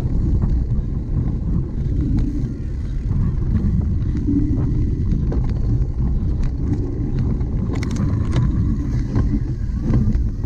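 Cyclocross bicycle ridden over rough ground: a steady low rumble of tyres and frame vibration with scattered clicks and rattles from the bike. A cluster of sharper rattles comes about three quarters of the way through.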